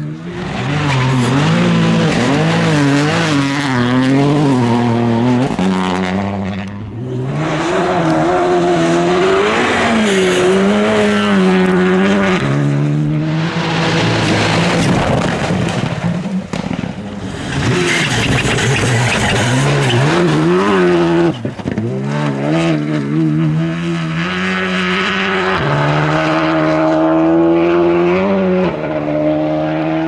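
Rally2 rally cars with turbocharged four-cylinder engines driven flat out on gravel. The engine note climbs and drops over and over through gear changes and lifts, with a few brief drops in level.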